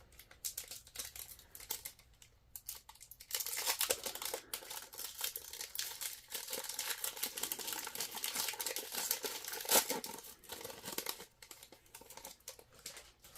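A trading card pack's wrapper being torn open and crinkled by hand, in a long run of crackling and small rips that is busiest through the middle and thins out near the end.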